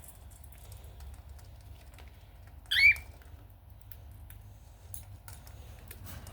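A cockatiel gives one short, sharp chirp about three seconds in, over faint scattered clicks and taps.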